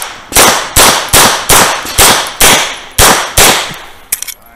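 Eight rapid pistol shots from a Tanfoglio Limited Pro, each a sharp crack with a short echo, about 0.4 s apart, with a slightly longer pause before the last two. A couple of faint clicks follow a little later.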